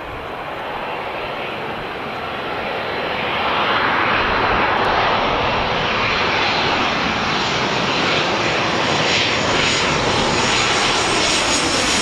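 Boeing 737's twin turbofan jet engines on final approach, growing louder as the airliner nears and passes low overhead. High-pitched engine whine rises over the rumble in the last few seconds.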